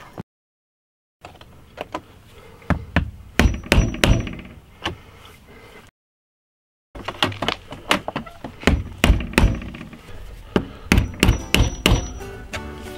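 Claw hammer tapping the end of a screwdriver held against metal, punching a starter hole for the lid stay's screw. The taps come quickly in two runs, each several seconds long, with a short dead-silent gap before each run.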